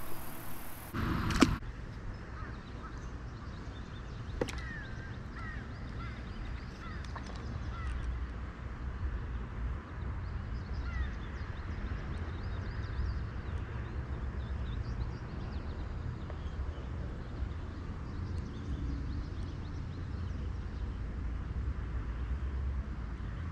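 Short bird calls, a few quick falling chirps a few seconds in and again about halfway, over a low steady rumble. A brief burst of noise at the very start and a single click shortly before the first calls.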